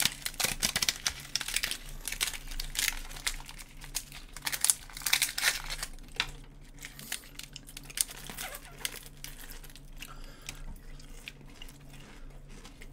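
Paper food packaging crinkling and tearing as a McDonald's apple pie sleeve and a small sauce packet are torn open and handled. The crackling is busiest in the first half and thins out toward the end.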